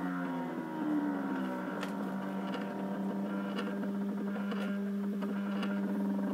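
Stepper motors of a CNC machine driving its axes at low speed (1 mm/s) while it draws with a pen: a steady whining hum, with faint ticks about once a second.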